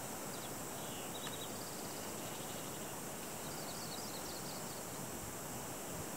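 Steady outdoor background hiss with faint, short high chirps twice, once near the start and again a little past the middle.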